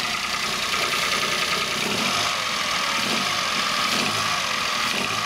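Toyota 1KR-FE 1.0-litre three-cylinder petrol engine in a Peugeot 107 idling steadily, shortly after a cold start at around freezing, with the unpleasant three-cylinder sound.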